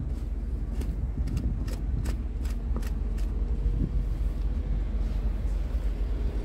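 Plastic screw cap being twisted onto a truck's coolant expansion tank, giving a quick series of sharp clicks, over a steady low rumble.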